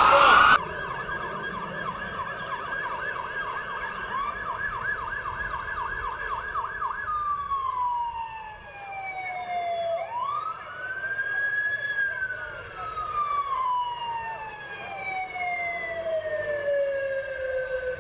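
Ambulance siren in a rapid yelp, changing after about seven seconds to a slow wail that falls, rises once and then glides down for several seconds. It opens with half a second of louder siren and street noise that cuts off abruptly.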